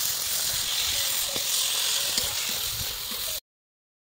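Onions and tomato pieces sizzling and hissing in hot oil in a large wok as they are stirred. The sizzle is steady and cuts off abruptly about three and a half seconds in.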